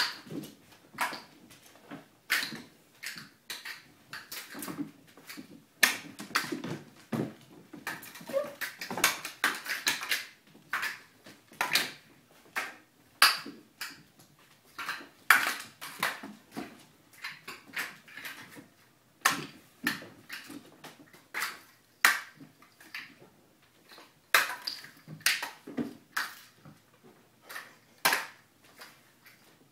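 Kittens jumping, landing and scampering on a hardwood floor: irregular sharp thuds and taps, with a denser rush of scuffling about eight seconds in.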